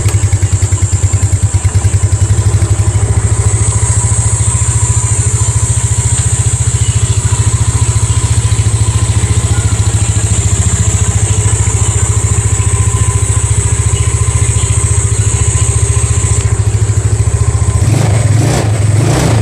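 Yamaha Mio Sporty scooter's small single-cylinder four-stroke engine running steadily at idle, its carburetor freshly cleaned of dirt that had caused hard starting and delayed throttle response.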